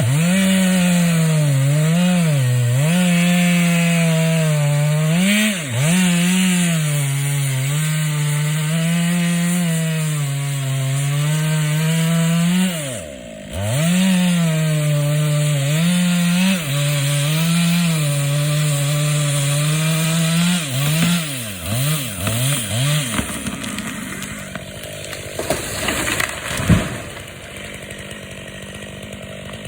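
Stihl MS 500i two-stroke chainsaw running at high revs and cutting wood, its pitch dipping repeatedly under load, with a brief deep drop in revs about 13 seconds in before it picks up again. The engine winds down and stops after about 21 seconds, followed by quieter scraping noise and one sharp knock near the end.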